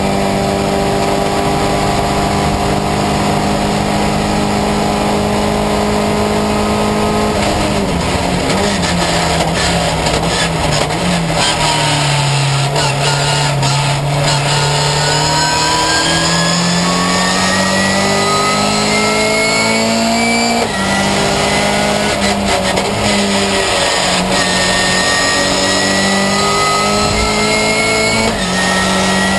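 Ginetta Junior race car's engine heard from inside the cockpit under hard driving. It holds a steady high note for about seven seconds, then the revs fall sharply and stay low for a few seconds. They climb steadily, drop suddenly at a gear change about two-thirds of the way through, and run high again.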